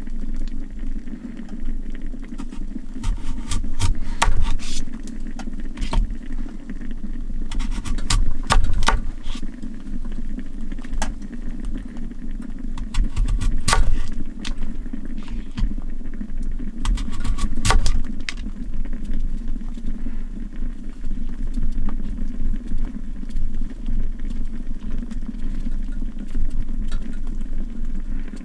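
Kitchen knife cutting through a daikon radish and knocking down onto a cutting board, a few sharp cuts in clusters every few seconds, then fewer as the knife turns to peeling a thin sheet from a round. A steady low hum runs underneath.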